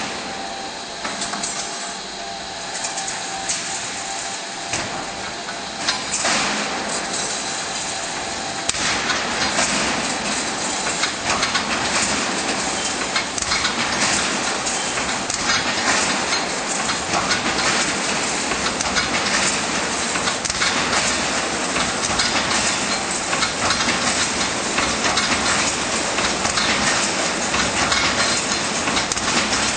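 DNW2-5mm fully automatic welded wire mesh machine running: a dense, rapid metallic clatter that grows louder and busier about nine seconds in.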